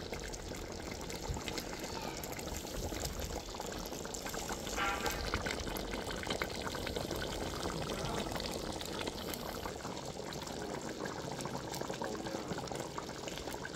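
Chicken curry simmering in a pot, a steady dense patter of small bubbles bursting.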